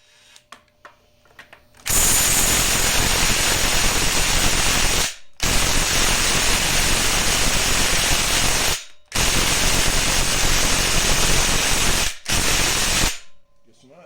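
Cordless impact wrench hammering on the harmonic balancer bolt of a Chevy LS 5.3 engine in three long bursts of about three seconds each, then a short one near the end. The bolt is not breaking loose.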